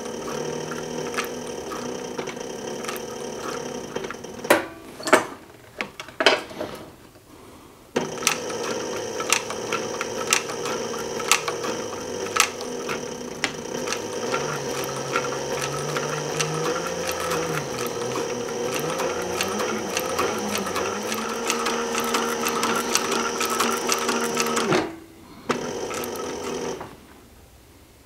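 Heavy-duty leather sewing machine stitching through a thick leather belt: motor hum under rapid needle clatter. The machine stops for a few seconds about four seconds in, with a few loud knocks, then runs steadily again and stops near the end after one short burst.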